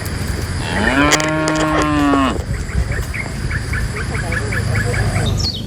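A cow mooing once, one long call of about a second and a half. Steady rows of short high chirps run underneath.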